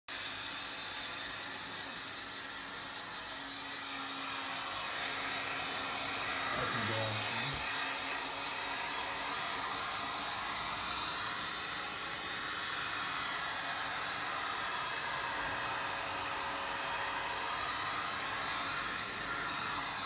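Handheld electric heat gun running steadily, its fan blowing hot air onto a fridge door's rubber seal to soften it; a steady hiss of air with a faint motor hum underneath.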